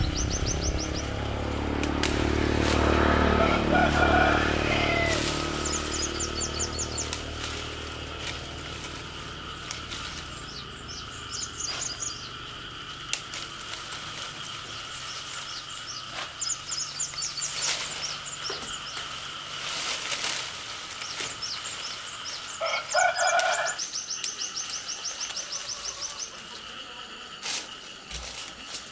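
Countryside sounds: birds chirping in short rapid trills over a steady high insect drone, with scattered clicks. A low hum fades away over the first several seconds, and a loud pitched call, like a rooster crowing, comes about two thirds of the way through.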